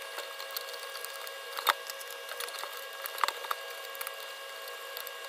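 Faint clicks and handling noise of small metal parts as brass standoffs are screwed on by hand through the motherboard into a CPU cooler backplate. Two clicks stand out, about a second and a half apart, over a steady background hum.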